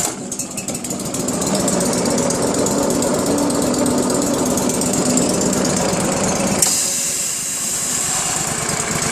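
Vermeer 252 stump grinder running with its cutter wheel engaged and spinning, a steady fast mechanical clatter over the engine. About two-thirds of the way through the sound changes suddenly and the lower tones drop away.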